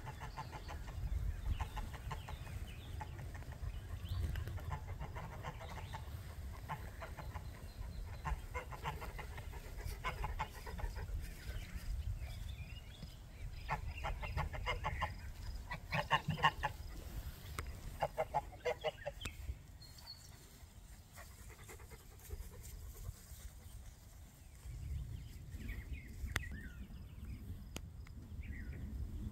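Chickens clucking in repeated bursts through the first two-thirds, over a steady low rumble.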